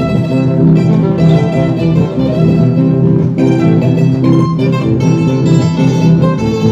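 Live string band playing an instrumental passage: strummed guitars with smaller plucked string instruments, at a steady, even strum.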